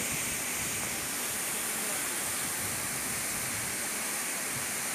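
A tall waterfall pouring down a rock face onto boulders: a steady, unbroken rush of falling water.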